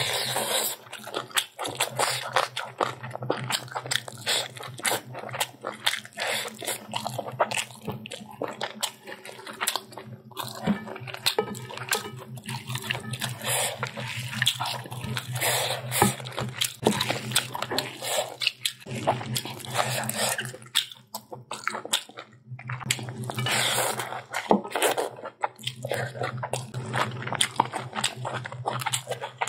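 Close-miked eating sounds: biting into and chewing chicken, rice and long beans with greens, eaten by hand, with crunching and many small irregular clicks.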